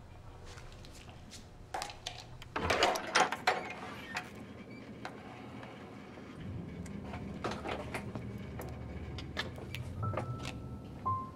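Knocking and clattering, loudest in a burst about two to three and a half seconds in, followed by scattered lighter knocks and the sounds of a wooden door being handled.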